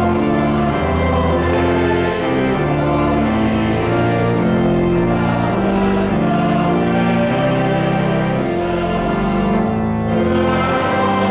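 Organ playing a hymn, holding chords that move step by step, with voices singing along.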